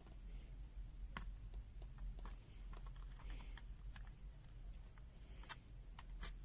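Faint, scattered light clicks and taps of small hard objects being handled, with two brief squeaky scrapes.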